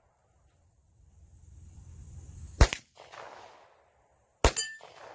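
Two pistol shots about two seconds apart, each followed by a short fainter tail from the steel target and range. A brief ring follows the second shot.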